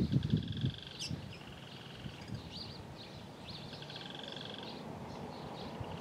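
Red-cowled cardinal singing: trilled phrases of about a second each, repeated with short gaps. A few low thumps in the first second.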